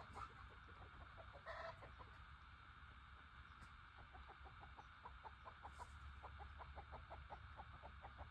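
Chickens clucking faintly: one louder short call early on, then a quick, steady string of short clucks through the second half.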